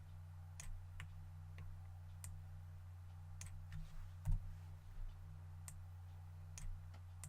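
Scattered single clicks of a computer mouse, about ten at irregular intervals, over a steady low electrical hum.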